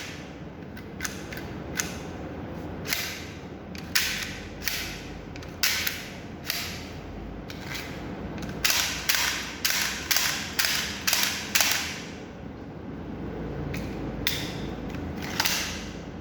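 Plastic toy Glock pistol being worked by hand: sharp plastic clicks and clacks of its mechanism, scattered at first, then a quick run of about seven in the middle and two more near the end.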